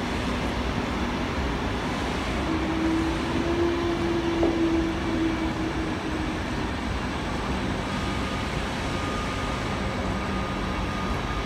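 ÖBB Nightjet passenger train rolling past along the platform: a steady rumble of carriage wheels on the rails, with a faint hum that rises in the middle and fades away.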